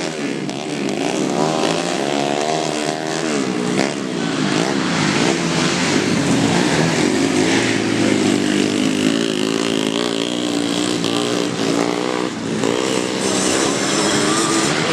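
Trail motorcycle engines revving, the pitch repeatedly rising and falling, with several bikes sounding at once.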